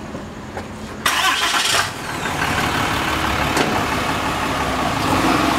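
A pickup truck's engine comes up suddenly about a second in, then runs steadily as the truck moves off close by, with its pitch rising slightly near the end.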